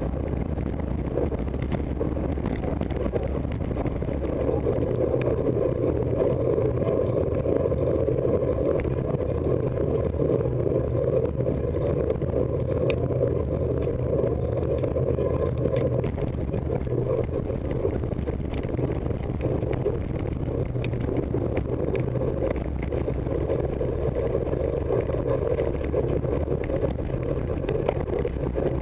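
Steady, muffled rush of wind and tyre rumble picked up by a camera mounted on a road bike riding in a racing pack.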